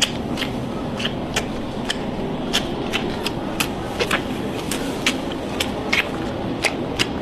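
Giant panda cub suckling at a milk bottle: short wet smacking clicks, roughly two or three a second, over a steady room hum.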